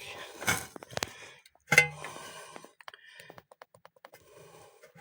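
Steering rack shaft of a Toyota Corolla Spacio clicking and knocking in its bushing as it moves: a string of irregular light clicks, the loudest a little under two seconds in. The shaft has play in a worn bushing, the cause of the steering rack knock.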